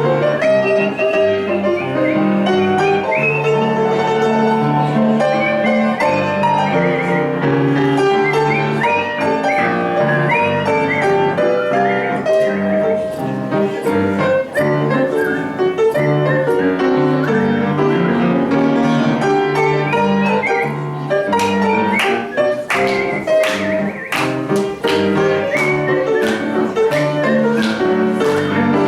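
A person whistling a melody with piano accompaniment: high, clear whistled notes with small slides between them over moving piano chords. Sharp accented strikes come in the last third.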